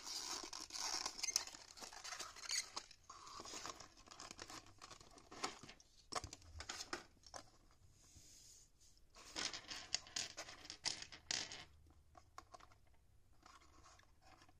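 Small cardboard box and plastic packaging of a diecast model car being handled and opened by hand: faint, intermittent rustling, scraping and small clicks, busiest at the start and again from about nine to eleven seconds in.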